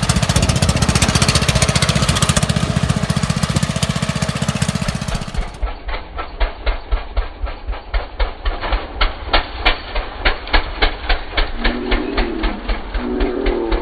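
Lawn mower engine running through a short straight-through exhaust, at high revs with a fast even beat at first; after a cut it idles slowly, each firing a separate loud pop at about two to three a second.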